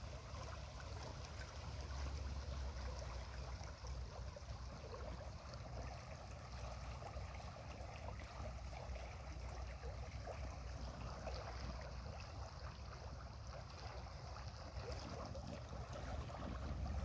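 River current flowing steadily, a constant rushing of water with a low rumble underneath.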